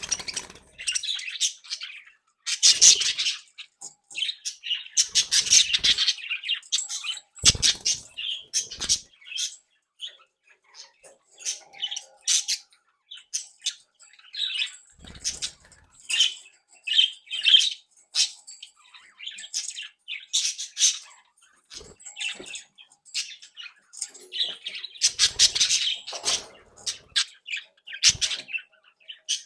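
A group of budgerigars chattering, with quick high chirps, warbles and squawks coming in bursts, and a few sharp clicks or wing flaps among them.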